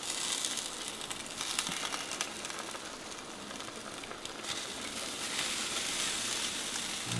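Sizzling and crackling from two whole chickens cooking in an open Weber smoker: a steady hiss with small crackles throughout.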